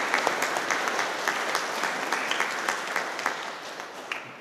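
A congregation applauding, many hands clapping at once, the applause slowly dying away near the end.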